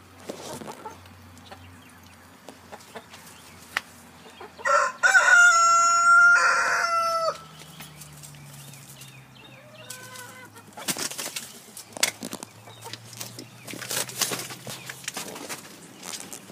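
A rooster crows once, loudly, about five seconds in, with a long held call of nearly three seconds. A few short clucks follow, then scattered brief rustling knocks.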